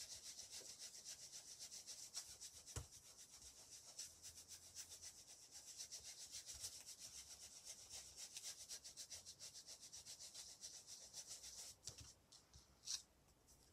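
Ink blending tool's foam pad scrubbed quickly back and forth over paper, applying ink: a faint rapid brushing at about four strokes a second. It stops near the end, followed by one brief scrape.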